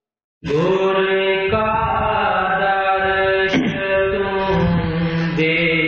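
A devotional hymn (shabd) begins to be chanted about half a second in, a solo voice singing in long held notes.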